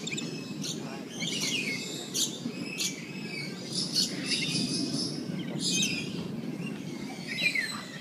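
Lorikeets chattering with many short, shrill chirps and squawks that overlap, over a steady low murmur of background noise.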